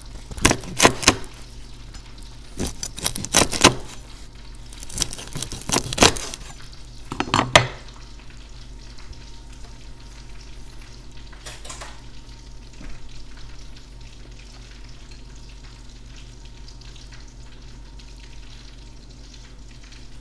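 A chef's knife crunching through the crisp, crackly skin of deep-fried pork belly on a wooden cutting board. There are several loud bursts of crackle over the first eight seconds, then only a low steady hum.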